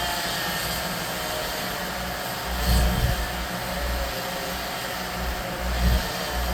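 Motorized tree-cutting equipment running steadily at a distance, a drone with a faintly wavering pitch, with two short low rumbles, about a third of the way in and near the end.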